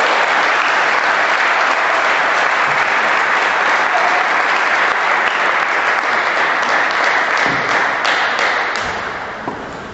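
Spectators applauding, a dense steady clapping that dies away over the last two seconds.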